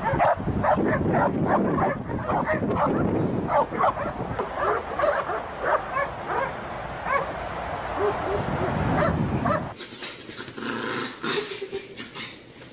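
A dog barking and yipping in quick, repeated calls. About ten seconds in, the sound cuts off suddenly to a quieter background.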